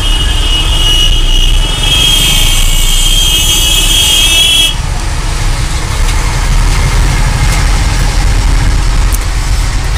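Steady low rumble of a vehicle engine running, with a loud high whistling hiss over it that cuts off suddenly a little under halfway.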